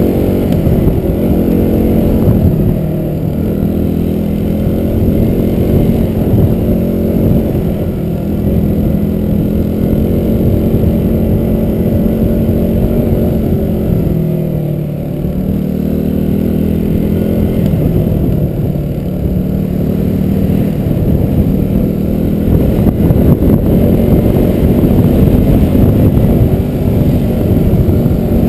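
Vehicle engine running steadily under load off-road. The revs drop briefly about halfway through and then climb back.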